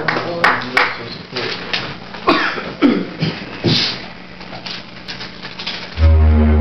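Handling knocks and clicks over a faint hum, then about six seconds in an analog modular synthesizer starts a loud, deep, steady drone.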